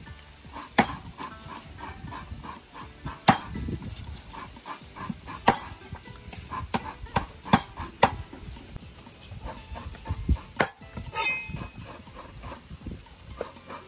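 A knife chopping the singed chicken into pieces: sharp chops at irregular intervals, some in quick succession. Farm animals call faintly in the background.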